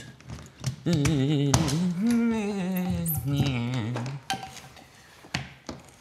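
A man's voice singing a wordless, wavering tune from about a second in until about four seconds in. Light clicks and knocks of cables and plugs being handled on a bench around it.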